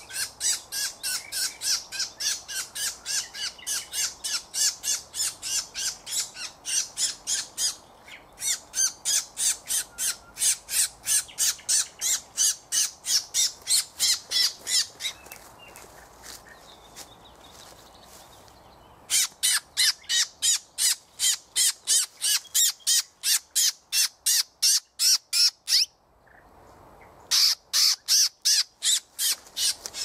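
A rapid, very even series of sharp, high squeaky calls, about four a second, in long runs broken by a few short pauses.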